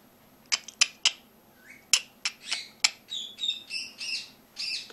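Puppy's teeth clicking on a rubber toy ball a few times, then about five short, high squeaks as the ball is chewed.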